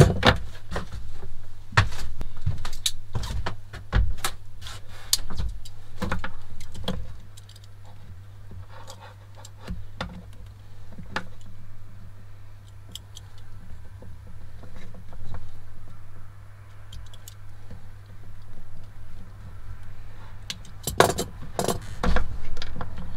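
Handling noise from cable work: scattered clicks, taps and light rattles as a heavy battery cable, ring lugs, a fuse holder and hand tools such as cutters are picked up, worked and set down. The clicks are busiest in the first few seconds and again near the end, quieter in between, over a steady low hum.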